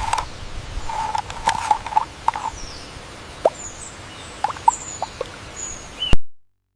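A scatter of light clicks and taps with faint, high bird chirps behind them. A sharp, loud click comes about six seconds in, and then the sound cuts off abruptly.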